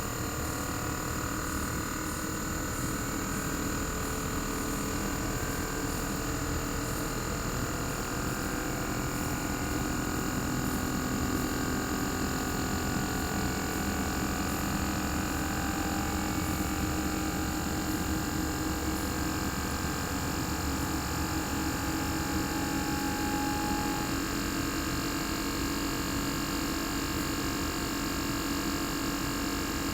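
Inverter-driven single-rotary compressor of a Panasonic CU-227CF air-conditioner outdoor unit running steadily, heard raw without its sound-deadening cover: a dense mechanical hum of many steady tones over a low drone.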